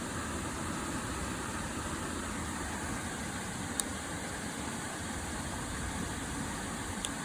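Steady rushing of a river waterfall, an even, unbroken noise, with two faint small clicks, one about halfway through and one near the end.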